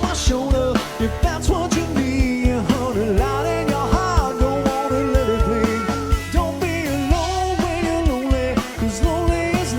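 Live country band playing: drums and bass keep a steady beat under a lead melody that bends and holds long notes.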